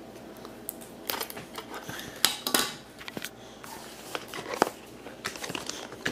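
A cardboard product box being handled and turned over on a stone countertop: scattered taps and knocks, the loudest about two and a half seconds in.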